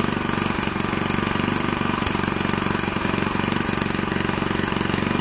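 7 or 8 hp Tecumseh horizontal-shaft single-cylinder engine running steadily after a carburetor rebuild, its firing an even rapid pulse.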